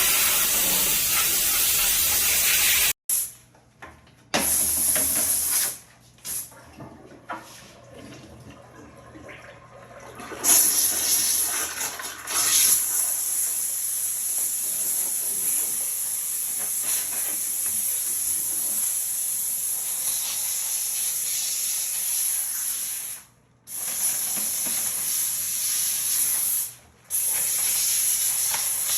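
High-temperature steam cleaner jetting steam: a steady high hiss that cuts off sharply and restarts several times, with a quieter, broken stretch early on.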